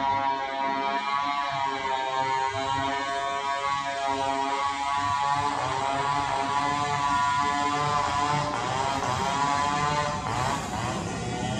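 Steady drone of a motor vehicle engine running, its pitch sweeping down and up around the middle and again near the end.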